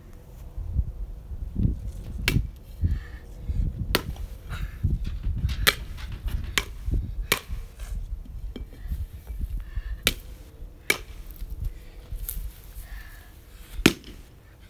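Baseball bat striking a small carved pumpkin, a series of about eight sharp knocks and cracks at irregular intervals as the pumpkin is smashed.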